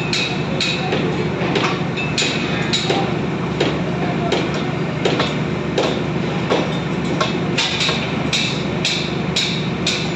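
Repeated metallic hammer strikes, one every half second or so, each with a short ringing tone, over a steady low machine hum.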